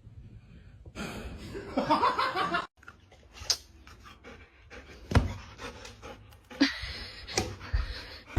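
A dog panting, with a person laughing and a few sharp knocks.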